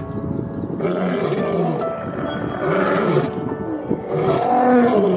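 A large animal roaring again and again, each call a short arching cry about a second apart, over background music.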